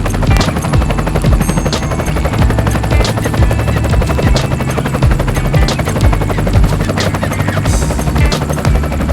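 Music or a sound collage: held low bass notes under a dense, fast rattle of clicks.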